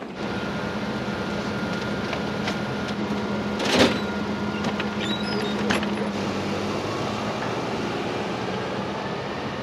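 A machine starts up abruptly, running with a steady hum and hiss. A sharp clatter comes about four seconds in, and a lighter click follows near six seconds.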